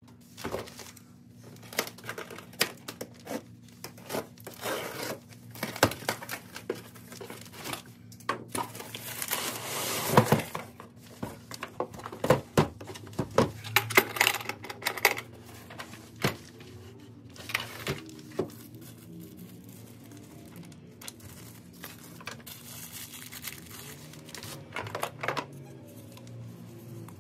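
Unboxing handling sounds: the latches of a hard plastic tool carrying case clicking open, the case and cardboard box being knocked and moved, and plastic packaging crinkling, a string of clicks, knocks and rustles that thins out in the second half. Faint background music runs underneath.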